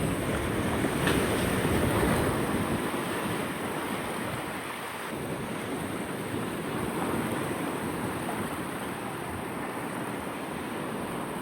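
Surf washing onto a beach with wind on the microphone: a steady rush of noise, louder for the first couple of seconds.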